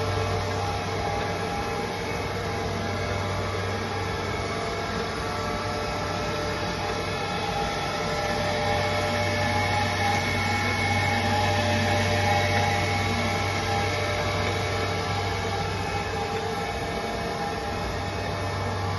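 Okamoto PS-6 surface grinder running, its spindle, hydraulic unit and dust extractor going together: a steady low hum with several higher whining tones over it, swelling a little about halfway through.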